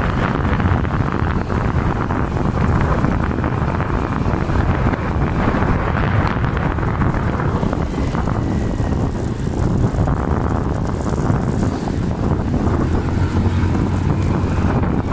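Steady wind rush on the microphone while riding through traffic, over a low rumble of the vehicle and the road.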